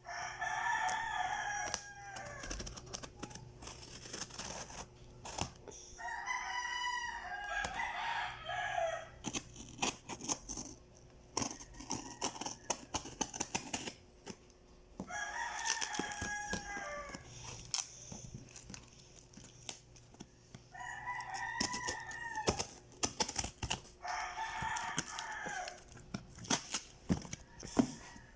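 Rooster crowing about five times, each crow a few seconds long, with crinkling and tearing of packaging between the crows.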